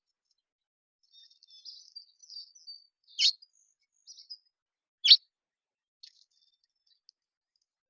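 Small songbirds at a feeder chirping and twittering softly, with two loud, sharp calls about two seconds apart and a few faint chips after.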